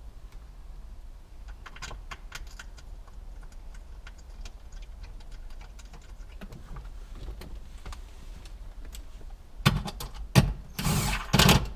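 Hands and tools working on plastic wiring-harness junction blocks and their metal mount: scattered light clicks and taps over a low steady hum, then several loud sharp knocks and a short clatter near the end.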